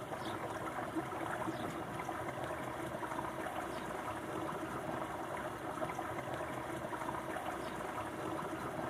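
Steady rushing water sound, an even noise without a beat or tune.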